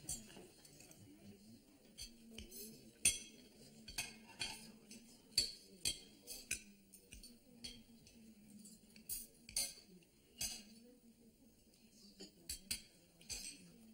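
Cutlery and crockery clinking: scattered, irregular light clinks, the sharpest about three seconds in.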